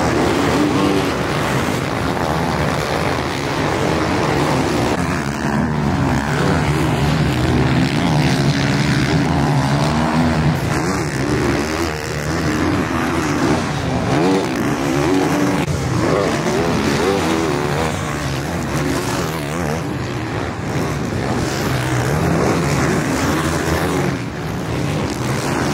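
Motocross bike engines revving hard, the pitch rising and falling again and again as the riders accelerate and back off around the dirt track.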